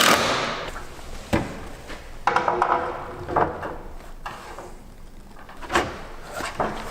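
Bottom flashing of a solar panel roof being slid and pressed into place: a few scattered knocks and a short scraping clatter about two seconds in.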